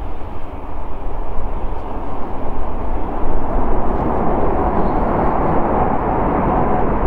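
Boeing 787-9's GEnx-1B jet engines during the landing rollout: a steady rushing engine noise that grows louder a little after halfway through.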